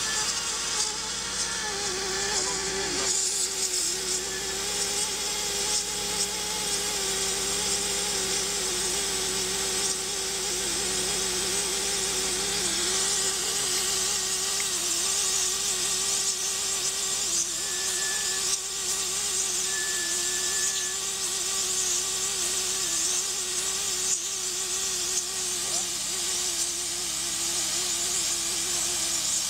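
Fibre blowing machine running, feeding single-mode fibre into a microduct on compressed air: a steady hiss of air with a continuous, slightly wavering mechanical hum.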